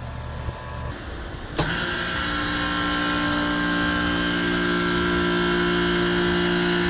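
An outdoor central air-conditioner condensing unit starting up. The compressor kicks on with a sudden jolt about one and a half seconds in, then settles into a steady, loud hum.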